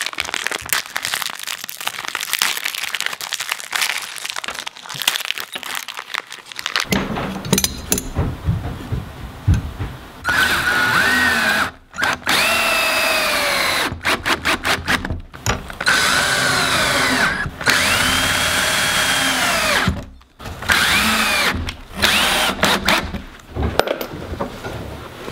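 Cordless drill driving screws through hinges into rough-sawn wooden boards. It runs in a series of bursts a second or two long, the motor whine rising and falling with each trigger pull, with quick stuttering pulses in between. Before the drilling starts there are several seconds of small clicks and rustling as screws are handled.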